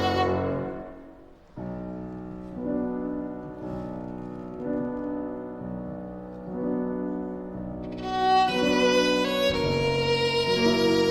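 Violin with piano accompaniment playing a slow romance. A note dies away to a brief pause about a second and a half in, soft sustained notes follow, and about eight seconds in the playing grows louder and brighter.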